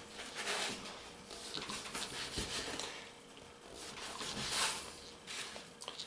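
Knife cutting through stacked whole wheat bread slices on a bamboo cutting board: soft rasping strokes with a few light knocks of the blade on the board.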